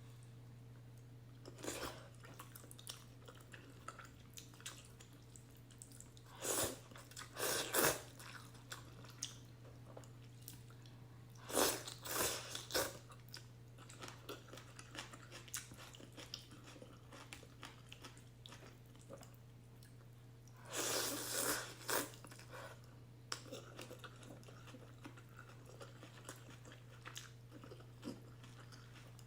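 Close-miked eating of ramen noodles with beef and egg: soft wet chewing clicks throughout, broken by three louder noisy bursts of one to two seconds each.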